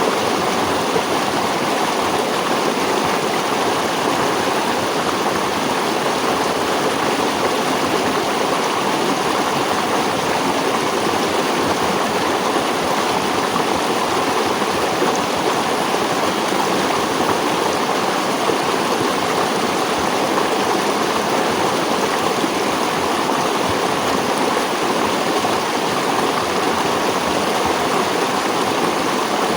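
Stream water flowing and rushing over rocks, a steady, even rushing with no pauses.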